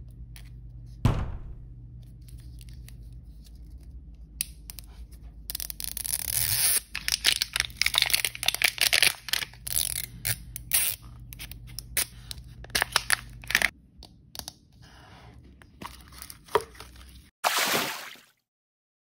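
Plastic wrapper of an L.O.L. Surprise ball being torn open along its tear strip: a long run of crinkling, crackling tearing noises. There is a single thump about a second in and a short rush of noise near the end.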